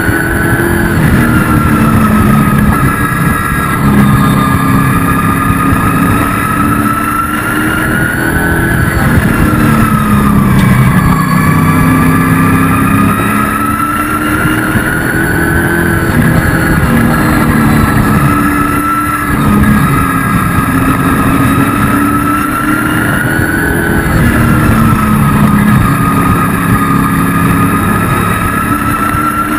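Race truck engine heard from inside the cab under racing load, its revs climbing and dropping in a repeating cycle every few seconds as it accelerates and lifts around the oval.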